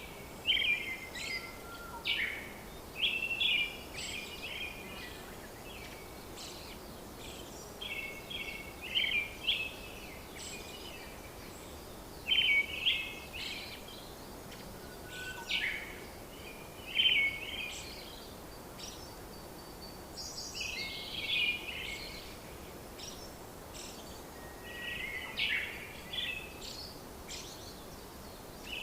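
Birds chirping and singing in short phrases every second or two over a steady background hiss.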